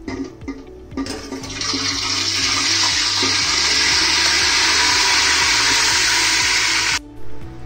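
Marinated chicken sizzling in hot mustard oil as it is tipped and scraped from a bowl into the pot. A few spoon scrapes come first, then the hiss builds about a second in, holds steady and loud, and cuts off abruptly near the end.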